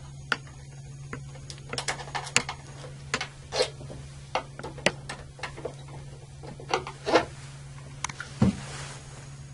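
Phillips screwdriver backing the screws out of a circuit breaker's molded front cover: irregular small clicks and scrapes of metal on plastic, over a steady low hum.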